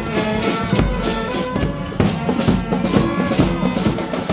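Amateur carnival wind band playing a tune, brass and reed notes over a steady percussion beat.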